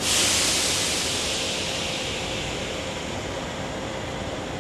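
A sudden burst of compressed air venting from a stationary SMRT C751B metro train, a loud hiss that starts abruptly and fades over about three seconds, over the steady hum of the train and station.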